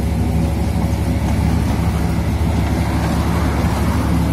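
Tractor engine running at a steady speed, powering a mobile brick-making machine that is laying moulded mud bricks.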